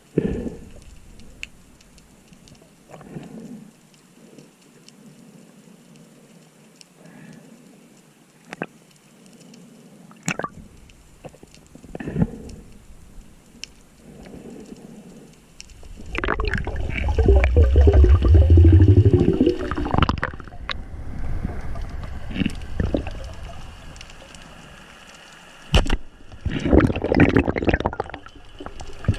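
Sea water splashing and gurgling close to the microphone, with scattered clicks. A loud rush of bubbling with a low rumble comes about 16 to 20 seconds in, and another burst of water noise near the end.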